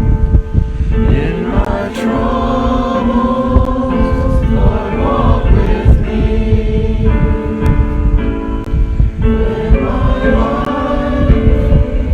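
A congregation singing a gospel hymn together, holding long notes.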